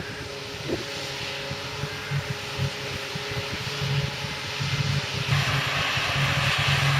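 Large diesel farm machinery engine running steadily, growing louder about five seconds in as it comes closer.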